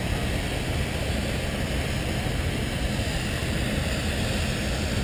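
Steady, irregular wind rumble on the microphone across an open field, over the distant working of a steam traction engine pulling a plow under load.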